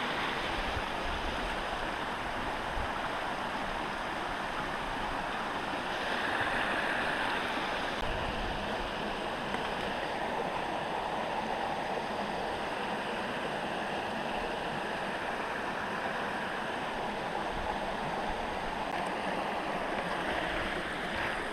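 Small creek cascading down a rock channel: a steady rush of running water, swelling a little partway through.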